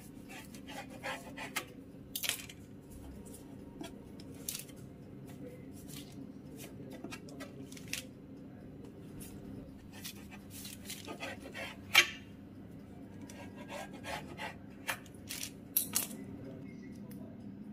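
Knife and hands working puff pastry strips on a parchment-lined metal baking tray: irregular taps, scrapes and clinks, the sharpest about twelve seconds in, over a steady low hum.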